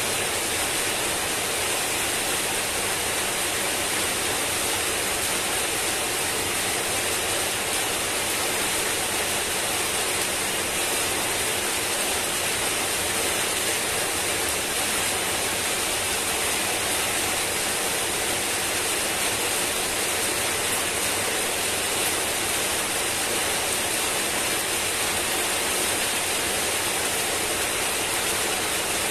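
Heavy rain falling steadily, an even hiss that does not change.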